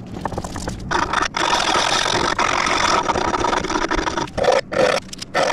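Hand file rasping across a rusty iron part. Long scraping strokes with brief breaks give way, near the end, to a few short strokes.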